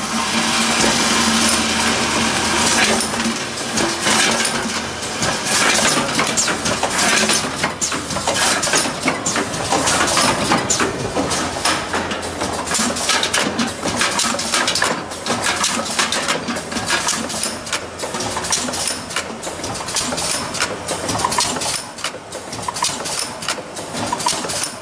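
Automatic paint-can spot welding and wire handle fitting line running: a dense, fast, irregular metallic clatter of tin cans and machine parts clicking and clanking, steady throughout.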